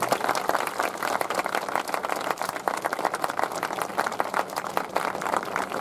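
Audience applauding: a dense, even clatter of many hands clapping.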